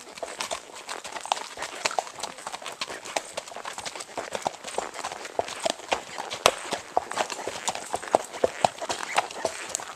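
Horses' hooves clip-clopping at a walk on a dirt-and-stone trail: irregular hoofbeats from several horses, several a second, without a break.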